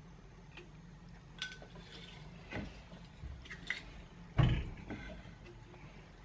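Light clinks and knocks of metal and glass being handled while a fireplace is being lit, with a louder, heavier knock about four and a half seconds in.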